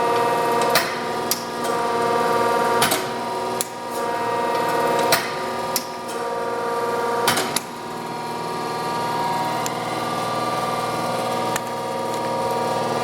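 Diacro 14-48-2 hydra-mechanical press brake running its ram at slow speed: a steady motor and hydraulic-drive hum, with sharp clacks about every two seconds, often in pairs, as the ram strokes.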